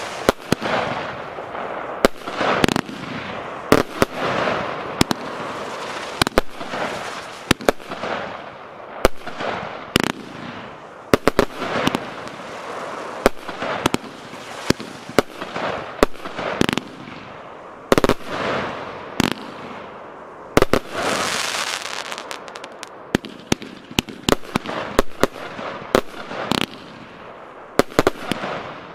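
A 70-shot, 25 mm consumer fireworks battery (cake) firing shot after shot: sharp bangs about once a second, with a hiss between them. The shots come faster and closer together near the end.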